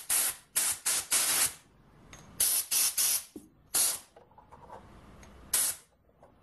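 Compressed-air blow gun fired in short hissing blasts into the bore of a freshly machined steel dead center, clearing out swarf and grit. The blasts come in quick clusters over the first four seconds, with a single last blast about five and a half seconds in.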